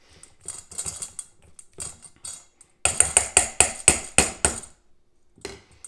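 Utensil stirring and beating a thick egg-yolk mixture in a stainless steel bowl, scraping and clinking against the metal. Light scrapes at first, then a quick run of strokes, about five a second, for nearly two seconds midway.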